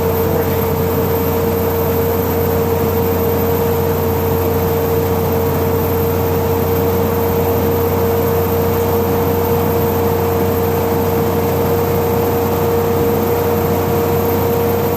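A steady, high-pitched squealing noise of unidentified cause inside a 2013 Tiffin Allegro Bus motorhome on the move. It holds one unchanging pitch over the constant road and engine noise.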